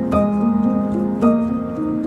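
Soft instrumental background music, with gently struck, ringing notes and a new chord about once a second.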